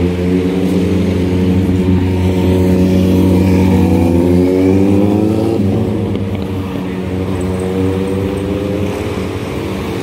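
Road traffic: a vehicle engine accelerating, its pitch rising for a few seconds and then dropping about halfway through, over a steady low engine hum.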